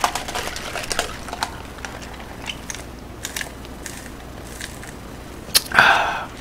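Close-miked sipping of a fountain drink through a straw from a paper cup, with small clicks and crackles from the cup being handled, then a short breathy burst near the end as the cup comes down.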